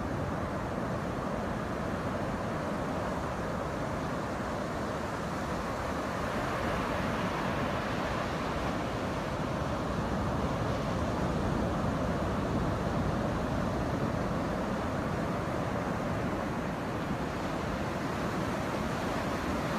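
Ocean surf breaking and washing up a sandy beach: a steady rushing noise of waves, a little louder around the middle.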